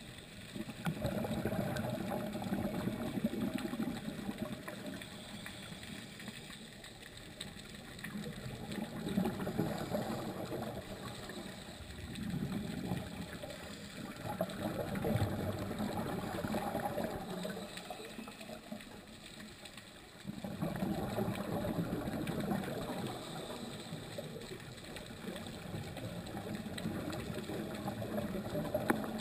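Scuba regulator exhaust bubbles heard underwater, coming in swells a few seconds long with quieter gaps between, the rhythm of a diver's breathing.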